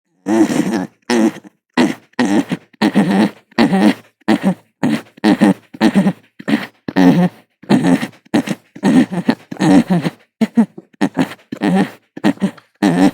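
Alpaca vocalizing: a rapid series of about twenty short, pitched calls, one after another.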